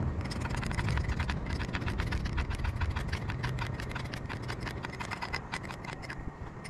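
Rapid, irregular crackling and snapping of dry leaves and twigs as someone pushes on foot through undergrowth, over a steady low rumble.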